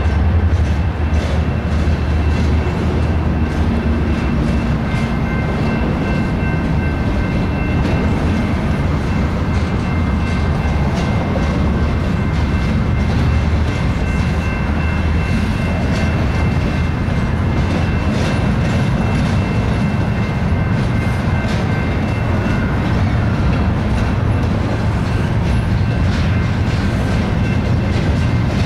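BNSF double-stack intermodal container train rolling past: a steady rumble of steel wheels on the rails with repeated clicking over the rail joints, and a faint steady high whine.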